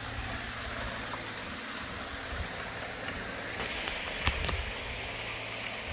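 Steady low background hiss with a faint hum, broken by a few light clicks and taps of parts being handled at the throttle body in the engine bay. The clearest tap comes about four seconds in.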